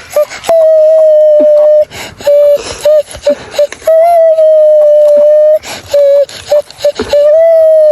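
A loud, high-pitched wailing tone held at nearly one pitch for a second or more at a time, broken by short gaps and a few clicks.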